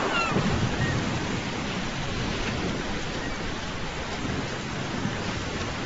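Steady rushing water noise, with a couple of short falling high-pitched calls right at the start.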